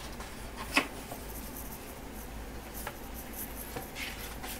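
Pages of a large photobook being turned and handled: one sharp paper rustle about a second in, then softer rustles and a tick, over a low steady hum.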